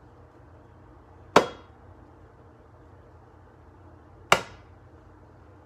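An egg tapped twice against the rim of a pan to crack its shell, about three seconds apart: each tap a sharp knock with a brief ring from the pan.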